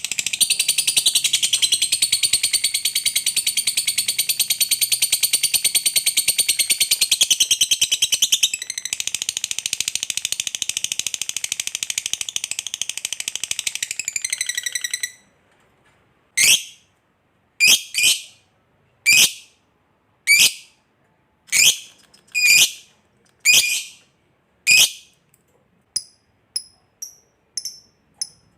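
Lovebird ngekek: a long, unbroken run of rapid, high chattering trills lasting about fifteen seconds, with a brief catch in the middle. This is the long 'ngekek panjang' prized in fighter lovebirds. It is followed by about nine separate loud chirps a little over a second apart, and a few faint short chirps near the end.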